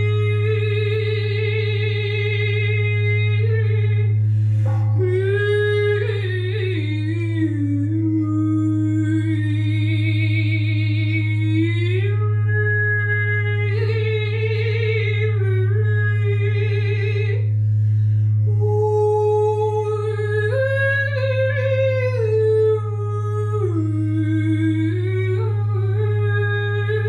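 A large hammered-metal singing bowl, rubbed on its side with a wooden-handled mallet, holds a steady low drone. Over it a woman sings long wordless phrases that glide up and down with vibrato, breaking off for breath a few times.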